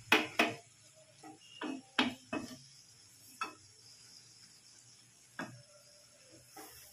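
A flat spatula stirring and scraping food in a stone-coated wok, with a series of irregular knocks and scrapes against the pan. There are several in the first couple of seconds and a few more spaced out later.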